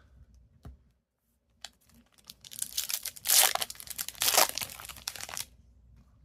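A plastic trading-card pack wrapper being torn open and crinkled. It starts about a second and a half in, is loudest in the middle, and stops abruptly near the end.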